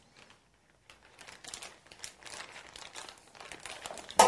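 Plastic crinkling in many small irregular crackles while pressed tofu is handled into its marinade, ending in one sharp click near the end.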